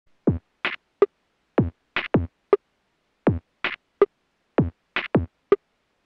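Sparse electronic drum-machine beat with nothing else under it: a deep kick that drops in pitch, one or two snare hits and a short pitched blip, the pattern repeating about every 1.3 seconds with silence between the hits.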